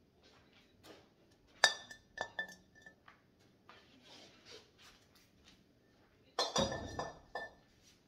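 Hard decorative pieces clinking and knocking together as they are handled and set down. There is a sharp clink with a short ringing note about a second and a half in, then a few lighter clinks. Near the end comes a longer clatter of several knocks and clinks.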